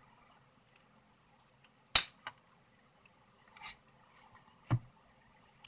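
A marker pen and spiral notebook being handled: a sharp click about two seconds in, a fainter click right after, a brief rustle, then a dull knock near the end.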